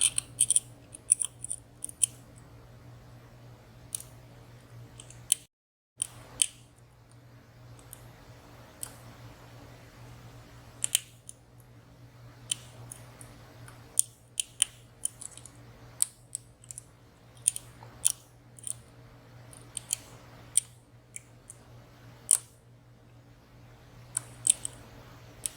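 Lock picks working inside a WSW W10 high-security padlock: small, irregular metallic clicks and scrapes as pins and sliders are set and drop, over a steady low hum.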